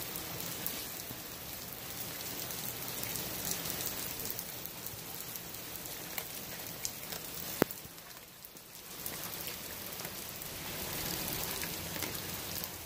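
Steady rain falling, with a Blue Bay Shepherd chewing a whole raw fish: scattered small crunches and one sharp crack about seven and a half seconds in.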